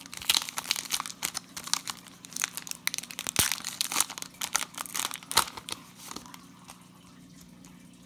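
Foil wrapper of a trading-card pack being torn open and crinkled in the hands: a quick run of sharp crackles for about five and a half seconds that then stops.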